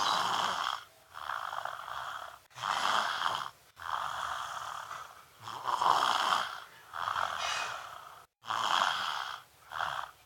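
Small child snoring, loud and deep like an adult's: a rough snore on nearly every breath, about one a second, with short breaks between.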